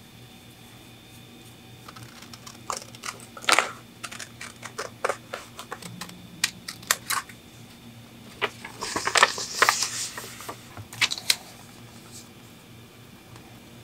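Scissors cutting out a paper template: a run of sharp snips and crisp paper rustling, starting about three seconds in and densest a little past the middle.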